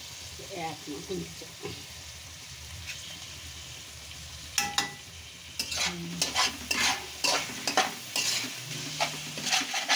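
Chicken pieces frying with a low steady sizzle in a pan. From about halfway, a metal spoon stirs them in quick strokes, scraping and knocking against the pan.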